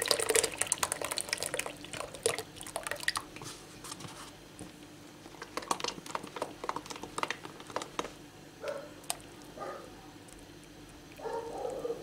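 Thick yogurt pouring and splattering from a carton into a cloth-lined bowl, loud for about the first three seconds, then fading to scattered drips and soft taps as the carton is shaken out.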